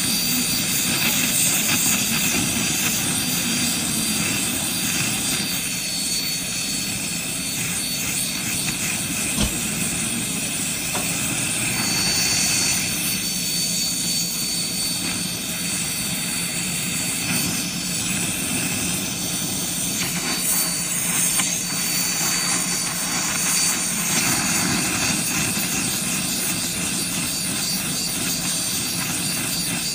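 Torch flame blowing steadily onto gold in a ceramic crucible: a constant hiss with a thin high whistle in it, as the gold is melted down to burn off impurities.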